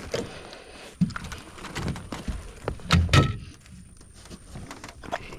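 Thumps and knocks in an aluminium fishing boat as a hooked catfish and a snagged branch are handled aboard, with the loudest pair about three seconds in.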